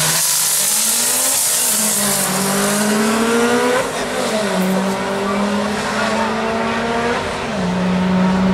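Twin-turbo Camaro V8 at full throttle down the drag strip. Its pitch climbs through a gear, drops at a shift about four seconds in, then climbs again and drops at a second shift near the end.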